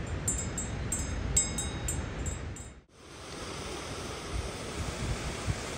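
Metal bell on a yak's collar clinking repeatedly with a high ringing tone, over a steady rumble of wind on the microphone. The clinking stops about three seconds in, leaving only the wind rumble.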